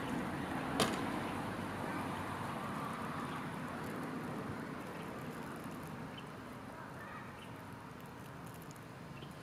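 A BMX bike landing on asphalt after a jump over parking blocks, one sharp smack about a second in, over a steady outdoor hiss that slowly fades.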